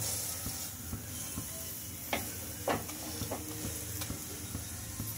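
Spinach paratha frying in oil on a nonstick tawa, a steady sizzle, with a few light knocks of a wooden spatula on the pan about two to three seconds in.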